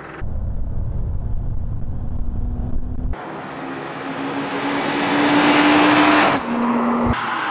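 A low rumble for about three seconds, then a car accelerating toward the microphone, its engine note rising and growing louder until it passes close by about six seconds in; the pitch drops as it goes away, and the sound cuts off suddenly.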